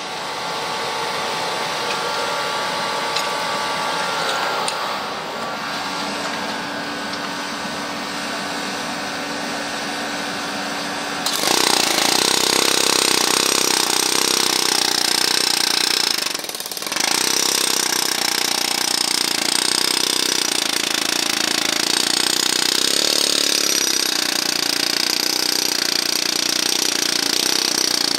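A machine running steadily. Its sound changes and grows louder about eleven seconds in, with a brief dip a few seconds later.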